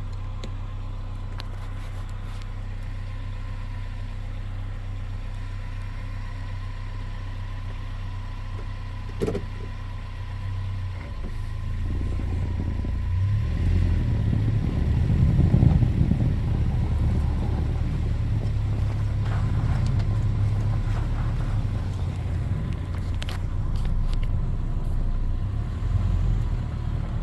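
Car engine running steadily at idle, with a single knock about nine seconds in; then the engine picks up into a louder rumble as the vehicle pulls away, loudest about four seconds after it starts.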